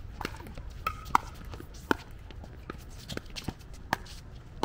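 Pickleball paddles striking a hollow plastic ball in a rally: sharp pops, the loudest about a second in, near two seconds and near four seconds, with lighter clicks between.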